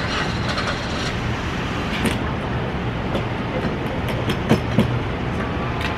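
Steady low rumble of idling vehicle engines and traffic, with a few sharp clicks and knocks scattered through it. The loudest are two close together about four and a half seconds in.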